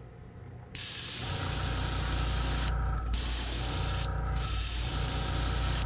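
Airbrush hissing as it sprays paint, starting just under a second in and briefly cut off twice as the trigger is let off. A steady low motor hum joins about a second in: the airbrush's air compressor kicking on and running.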